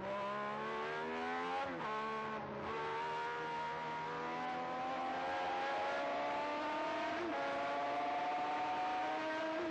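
1978 Ligier Matra Formula One car's V12 engine at full throttle: it climbs in pitch, drops sharply with a gearshift about two seconds in, then holds a high, slowly rising note at speed with small pitch steps later on.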